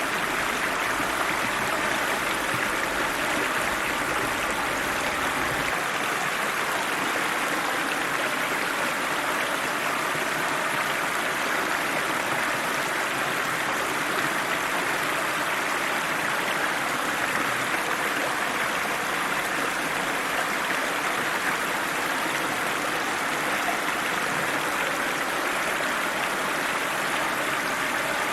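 A river running steadily, its water rushing over rocks in an even hiss that does not let up. A faint low rumble underneath cuts off suddenly about six seconds in.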